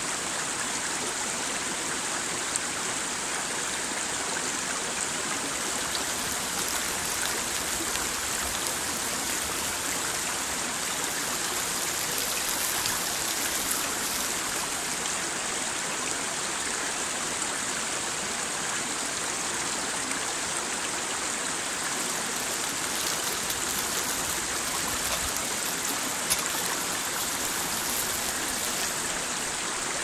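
Shallow stream running over stones and boulders: a steady rush of water.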